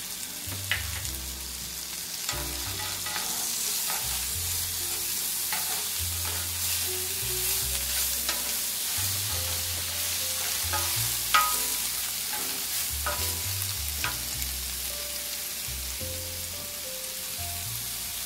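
Sliced white mushrooms and garlic sizzling in butter in a cast-iron skillet, with a steady hiss, while a wooden spatula stirs them, clicking and scraping against the pan now and then.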